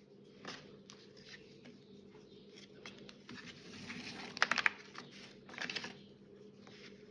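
Hands working a 4 mm macramé cord while tying on a lark's head knot: faint rustling and brushing of cord over a woven fibre mat, with a quick run of light ticks about four and a half seconds in.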